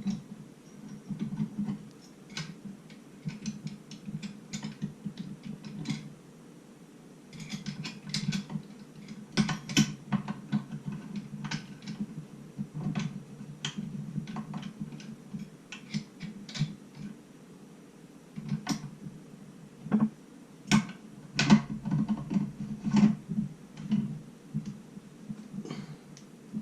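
Irregular clicks, knocks and clatter of hard parts being handled, over a steady low hum.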